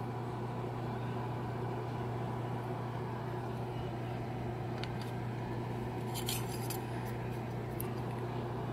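Steady low background hum, with a few faint clicks about five to seven seconds in.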